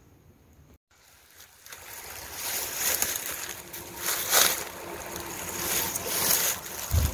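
Footsteps pushing through dry grass and reeds, a rustling, crunching noise that swells every second or so, mixed with wind buffeting the microphone. It starts after a cut about a second in and grows louder.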